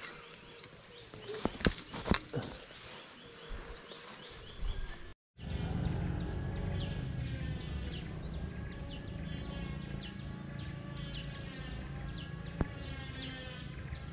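Steady high-pitched insect chorus with many small chirps, over a low rumble. In the first few seconds there are a few knocks and clicks from a fishing rod being handled and set in a holder, and the sound cuts out for a moment about five seconds in.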